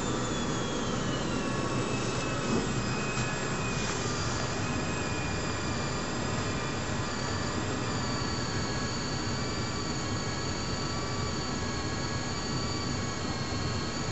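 Small electric gear motor of a 3Racing RC crawler winch whining steadily as it reels in line and pulls the weight of a crawler chassis. Its pitch sinks gradually over the first few seconds as the motor takes the load.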